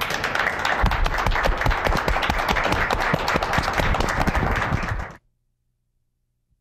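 Audience applauding, a dense clatter of many hands clapping that cuts off abruptly about five seconds in.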